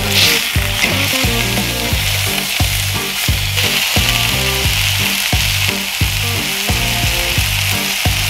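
Steaks searing in butter in a hot cast iron skillet: a steady sizzle and spit of frying fat, a little louder at the very start. Background music with a steady beat plays underneath.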